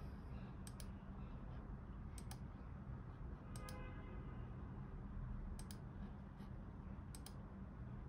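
Computer mouse button clicked five times, roughly every second and a half, each click a quick double tick of press and release, over a faint low room hum.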